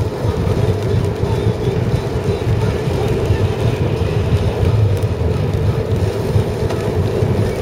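Steady road noise inside a car's cabin while driving on a rain-wet road: the engine and the tyres on wet pavement make a continuous low rumble.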